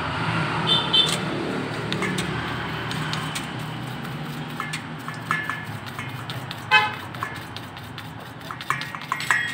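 Small hand brush scrubbing inside the combustion chamber of a motorcycle cylinder head, a run of quick scratchy strokes against the metal. A steady traffic drone lies under it, and a short horn toot sounds about seven seconds in.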